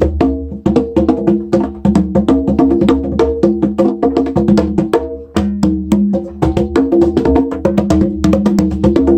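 Conga drums in a fast solo: a dense run of rapid hand strokes at two or three different pitches, with no break.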